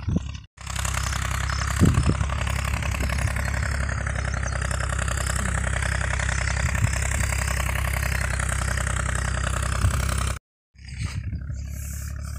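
Tractor diesel engine running steadily at idle, with an even low throb. The sound starts just after a short break and cuts off abruptly near the end.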